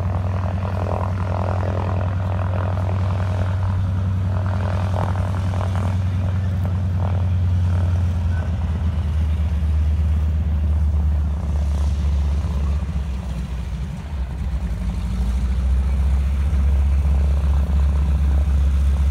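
Floatplane's piston engine and propeller running at low power while taxiing in, a loud steady drone whose note drops a little about eight seconds in.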